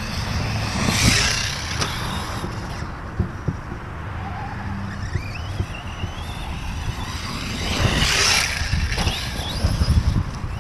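Reely Raptor 6S RC truck driving on a dirt track on a 4S battery, its brushless electric motor whining and rising in pitch as it accelerates in the middle. Two louder rushes of noise come about a second in and near the end, over a constant low buffeting of wind on the microphone.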